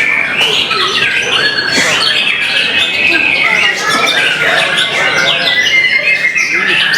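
Several caged songbirds singing at once in a loud, continuous chorus of overlapping whistles, trills and chatter, the contest birds singing against each other.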